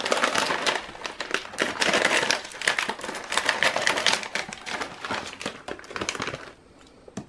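Cracker packaging being handled, with dense, irregular crinkling and rustling that dies away about six and a half seconds in.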